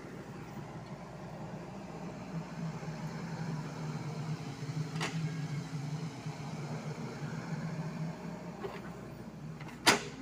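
Sany SY55C mini excavator's diesel engine running steadily under load while digging. A short click about halfway through and a loud sharp knock near the end.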